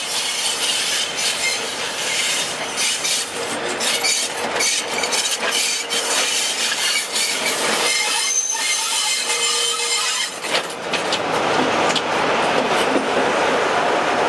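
Passenger train in motion, heard from an open carriage window: steel wheels rumbling and clicking over the rail joints, with some wheel squeal and rushing air. It grows louder at about eleven seconds, as the carriage draws close alongside a diesel locomotive on the next track.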